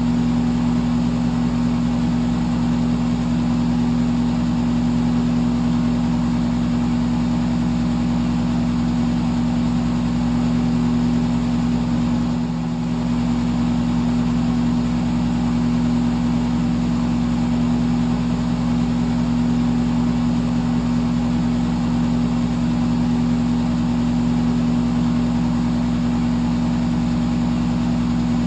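Electric fan running steadily: a constant motor hum with a rush of air over it. The level dips briefly once, about halfway through.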